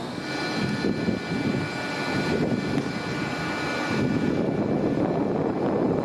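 Bombardier Flexity 2 tram approaching along street track, its electric drive giving a steady high whine over a rumble of wheels and street noise.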